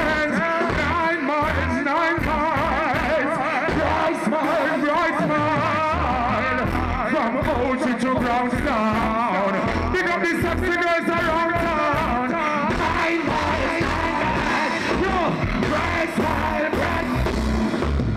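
Live reggae band playing through a concert sound system, with a male vocalist singing into a microphone over a steady bass pulse.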